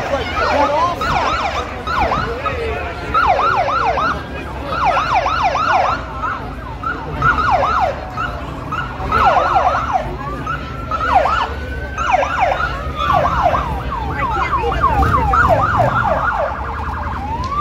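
Police motorcycle sirens chirping in short runs of quick falling whoops over a low rumble. Near the end, a siren begins a rising wail.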